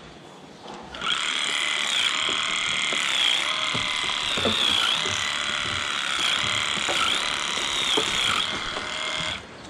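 Electric livestock clippers buzzing as they trim the long hair of a cow's tail switch, with brief dips in pitch now and then. They start about a second in and cut off just before the end.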